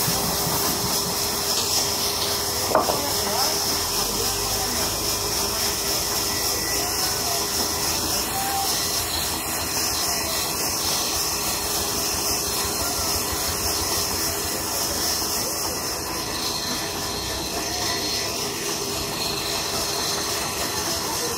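Sawmill band saw running steadily with its blade ripping lengthwise through a long timber plank as workers feed it through: a continuous hiss over a steady motor hum, with one short knock about three seconds in.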